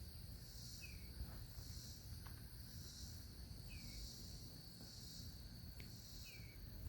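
Faint outdoor insect chorus, a high chirring that swells and fades about every three-quarters of a second. A bird gives a short falling call about every two and a half seconds, and there is a low rumble underneath.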